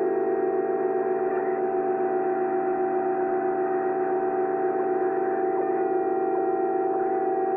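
Radio receiver on 26 MHz, the 11-metre band, sounding several steady whistling tones at once over a bed of static. These are unidentified signals that the uploader suggests could be railway sensors.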